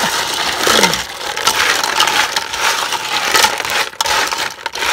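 Small hard-shelled snails being rubbed and tossed by hand in a metal pot, their shells clattering and grating against each other and the pot's sides in a dense, continuous crunchy rattle as they are worked together with seasoning.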